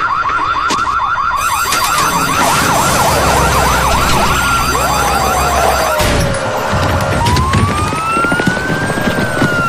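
Police sirens: a fast warbling yelp for the first six seconds, then slower long rising and falling wails. A sharp bang about six seconds in.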